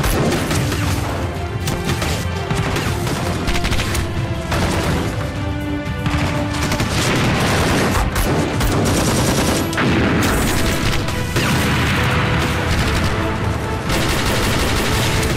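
Rapid bursts of automatic rifle fire from a staged firefight, with occasional booms, over a tense dramatic music score.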